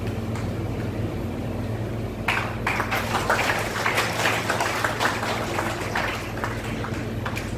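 Scattered hand clapping from an audience, starting about two seconds in and thinning out near the end, over a steady low electrical hum.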